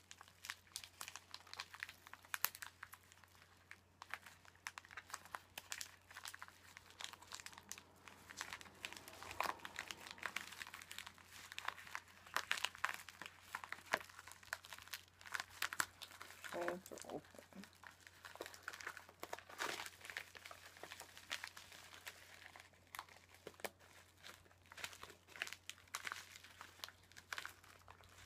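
Plastic mailer packaging crinkling and rustling as hands pick it open, a steady run of small crackles.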